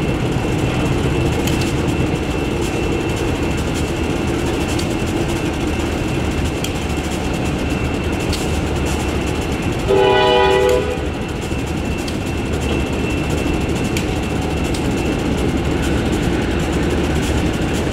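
Freight train with diesel locomotives running as open hopper cars roll past, wheels clicking over the rails. One short locomotive horn blast about ten seconds in is the loudest sound.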